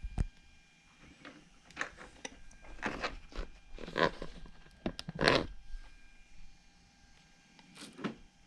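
Scattered handling noises: a couple of sharp clicks at the start, then short rustles and scrapes every second or so.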